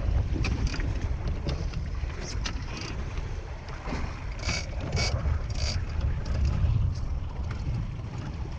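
Fishing boat running at sea: a steady low engine rumble with wind on the microphone and water noise, and a few short sharp clicks and knocks scattered through it.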